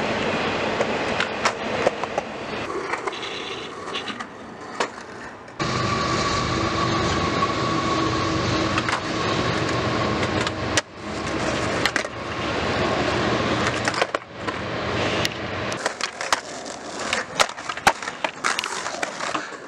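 Skateboard wheels rolling on concrete, with sharp clacks of the board striking the ground now and then, several of them in quick succession near the end.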